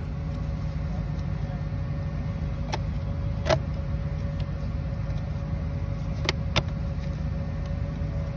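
Engine of farm machinery running steadily nearby, a constant low hum with a steady tone, with a few sharp clicks as corrugated plastic drain tile is worked into its fitting.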